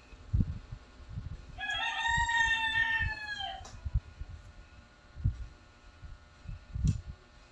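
A rooster crowing once, a single call of about two seconds starting about two seconds in, with a rise, a held middle and a falling end. Low knocks of a ladle stirring squash in a metal wok sound at intervals.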